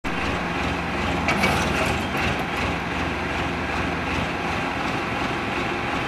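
Escorts Powertrac 4455 tractor's diesel engine running steadily with an even low rumble while it works a mounted loader backhoe, with a few metallic clanks a second or two in.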